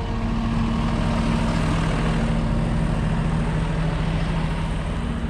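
Fendt tractor's diesel engine idling steadily, heard from close beside the tractor.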